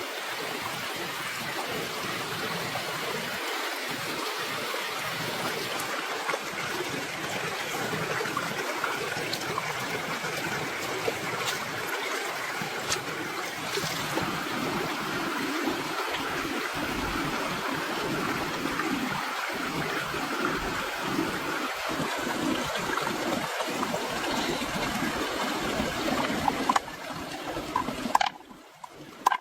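Steady rushing water, with a few sharp clicks near the end as the noise drops away.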